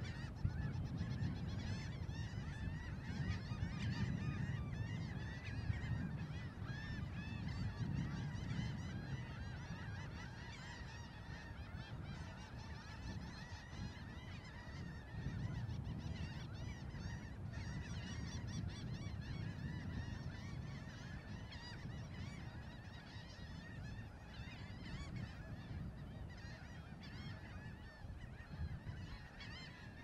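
A flock of birds calling together in a dense, continuous chorus of short, overlapping honking calls, over a steady low rumble.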